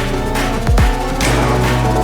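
Electronic dance music with heavy bass and a rising synth sweep.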